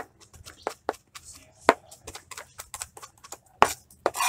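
Knife chopping garlic on a plastic cutting board: a run of quick blade knocks, about five a second, uneven in strength with a few sharper strikes.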